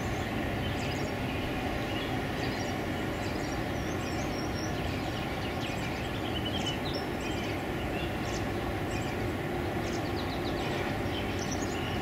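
Steady background rumble of city noise with a low hum running through it, even in level throughout. Faint, scattered bird chirps sound above it.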